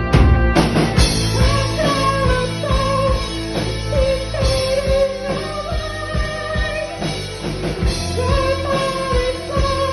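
Live rock band playing with a lead vocal. A run of heavy, evenly spaced drum hits ends about half a second in, and a sung melody then carries on over guitar, bass and drums.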